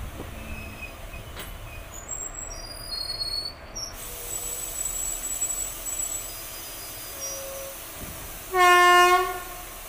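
Indian Railways passenger train rolling slowly, its wheels squealing faintly in thin high tones. Near the end the locomotive horn sounds once, loud and steady, for under a second.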